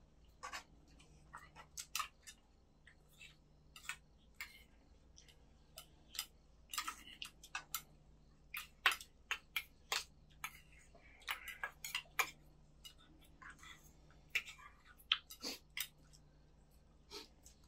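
People eating at a table: chewing, with chopsticks and spoons tapping and scraping on bowls and pans in many short, irregular clicks.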